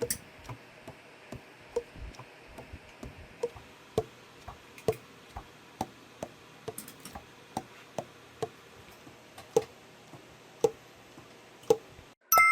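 Selmer Super Action 80 Series II alto saxophone keys being worked without blowing: pads clap shut on the tone holes in an irregular run of short clicks, a few a second, each with a brief hollow ring from the body.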